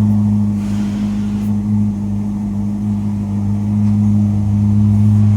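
Ferrari SF90 Stradale's twin-turbo V8 idling steadily, heard from inside the cabin as an even low hum.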